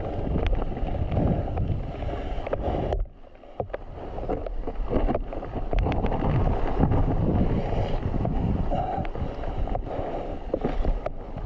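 Wind buffeting the microphone of a mountain bike's ride camera, over tyres rolling on a dirt trail and the bike rattling and knocking over the ground. About three seconds in the noise drops away sharply for under a second, then comes back.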